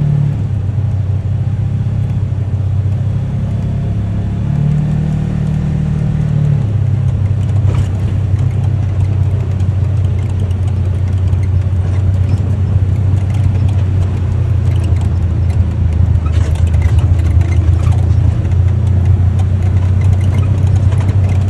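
UTV engine running under way, a steady low drone whose pitch drops and rises a few times in the first seven seconds, then holds steady. Scattered short clicks and rattles come in the second half.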